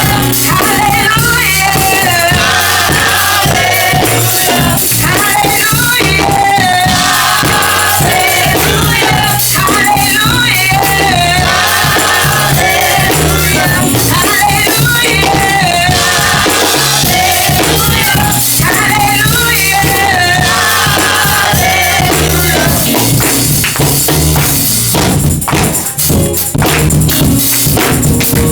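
Live gospel praise music: voices singing over a band, with a tambourine shaken throughout. Near the end the singing drops away and sharp drum-kit hits take over.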